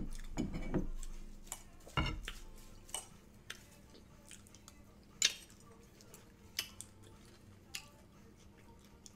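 A metal utensil clinking and scraping against a bowl as food is scooped out, in a handful of separate sharp clicks a second or more apart, the loudest a little past the middle.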